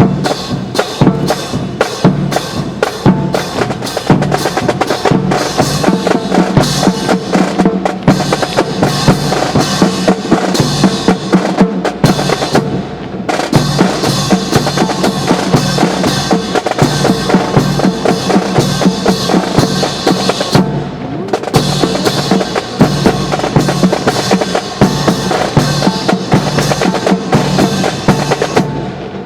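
Marching snare and bass drums playing a steady drill cadence with rolls and rim strokes. The drumming breaks off briefly about halfway through, and again about two-thirds of the way through.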